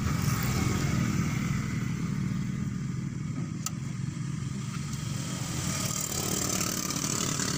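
Truck diesel engine idling steadily, with a single sharp click about three and a half seconds in.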